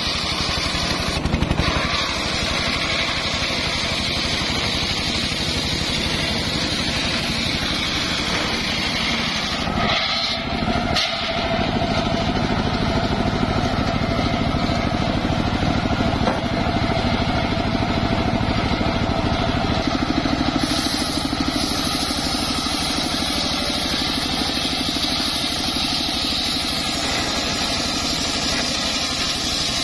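Homemade engine-driven circular sawmill running steadily as its large blade rips lengthwise through jowar logs, with a brief drop about ten seconds in.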